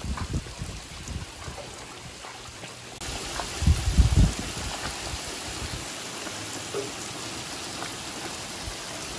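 Rain falling on the sea around the boat, a steady hiss that gets louder about three seconds in, with a few low thumps around four seconds in.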